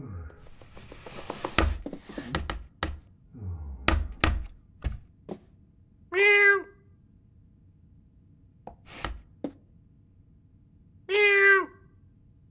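Cartoon cat sound effects: a quick run of thumps and knocks over the first few seconds, then two short, loud meows about five seconds apart.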